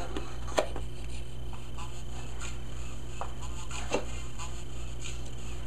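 Music played faintly through an OrigAudio Rock-it vibration speaker pod, over a steady low hum. Two sharp knocks come, about half a second in and again about four seconds in.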